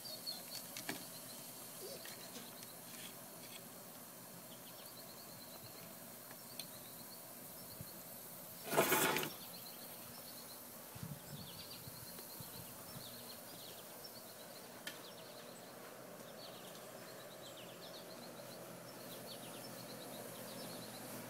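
Outdoor ambience with small birds chirping over and over, short high chirps that fall in pitch. A brief loud rush of noise about nine seconds in is the loudest thing.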